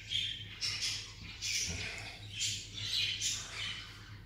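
Small birds chirping over and over in short high calls, with a steady low hum underneath.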